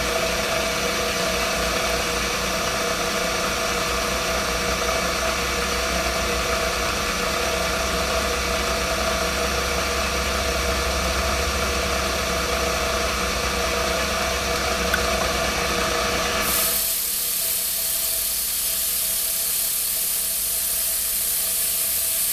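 Vertical milling machine running with a steady motor hum and spindle whine. About sixteen seconds in, the sound changes abruptly to a loud, steady air hiss from the mist-coolant sprayer aimed at the end mill.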